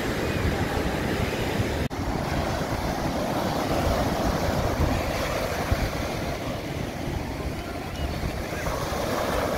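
Ocean surf breaking and washing up a sandy beach, a continuous rushing wash that swells and eases, with wind buffeting the microphone. The sound drops out for an instant about two seconds in.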